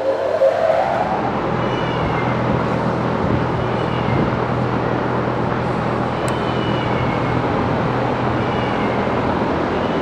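Large 50-inch box exhaust fan with a 1.1 kW single-phase four-pole motor, running as a steady rush of air over a low hum. Its pitch rises at the start and levels off about a second in as the fan finishes spinning up.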